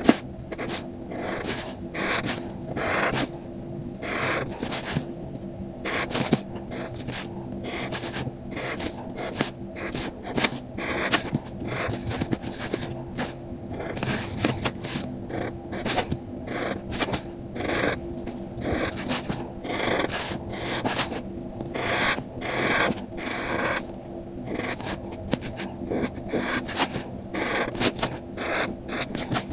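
Handmade card crafting: card and paper being worked by hand, giving short scratchy scrapes and rustles that come irregularly several times a second, over a faint steady low hum.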